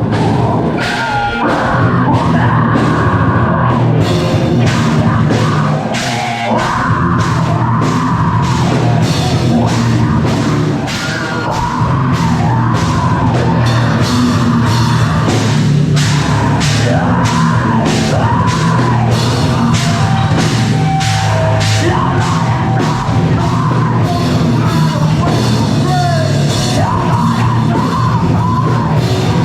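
Live heavy rock band playing loud, with distorted electric guitar and a pounding drum kit.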